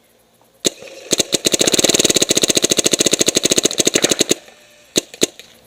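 Dangerous Power Rev-i paintball marker firing Reballs in ramp mode into a Reball catcher cage: a rapid, even string of shots lasting about three and a half seconds, then two single shots near the end.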